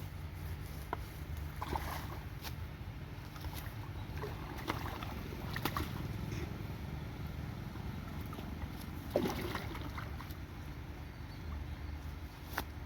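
Steady sound of river water, with scattered small knocks and clicks.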